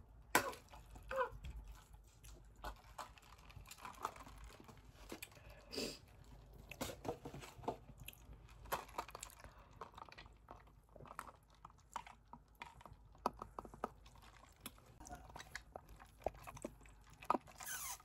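Faint chewing and mouth sounds of someone eating, with scattered small clicks and smacks.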